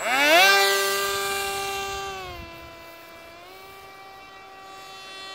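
Turnigy Aerodrive D2826-10 1400 kV brushless motor spinning a 7.5-inch propeller on a foam-board RC plane. It rises quickly to a high whine as the plane is launched, then fades as the plane flies away. The pitch dips about two and a half seconds in and comes back up about a second later.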